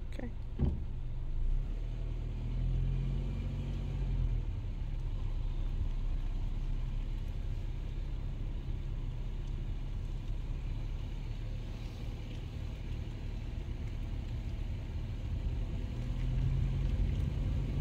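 Low, steady rumble of a slow-moving car, engine and road noise, growing a little louder near the end.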